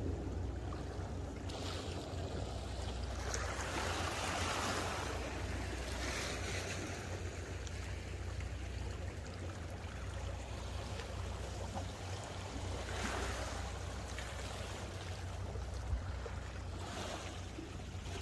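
Sea water washing against the shore in slow swells every few seconds, over a steady low rumble.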